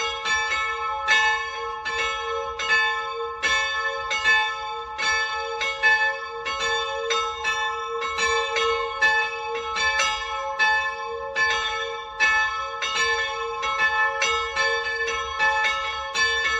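Full peal of two small swinging church bells, cast in Salzburg in 1693 and 1779 and tuned to a'' and c♯''', ringing together in a steady, irregular stream of overlapping strokes, about three a second, their tones humming on between strikes.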